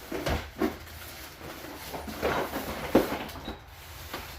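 A few separate knocks and scrapes from lathe parts and packaging being handled during unboxing.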